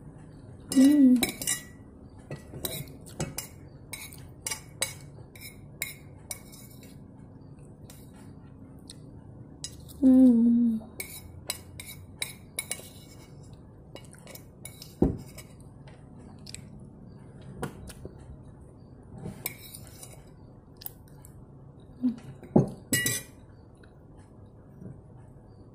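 Metal spoon and fork clinking and scraping against plates during a meal of noodles, in scattered irregular clicks with a few sharper knocks. Two short hums from the eater, about a second in and about ten seconds in, are the loudest sounds.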